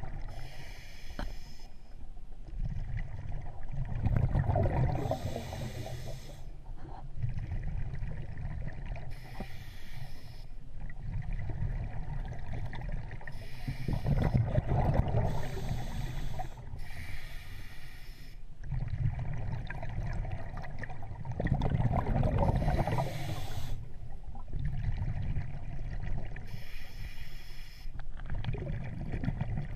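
Underwater breathing of a scuba diver on a regulator: short hissing bursts, and loud rushes of exhaled bubbles with gurgling, the biggest coming about every eight to ten seconds.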